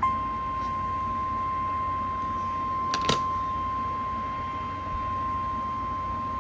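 NOAA Weather Radio 1050 Hz warning alarm tone, received over the radio: one steady, unwavering tone that switches on abruptly and holds, over faint static hiss, sounded as the weekly alarm test. Two brief clicks of static break in about three seconds in.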